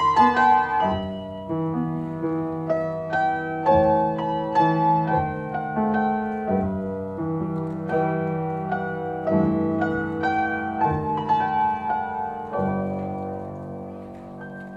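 Piano playing ballet class accompaniment: chords and melody in an even pulse, ending on a held chord that slowly dies away near the end.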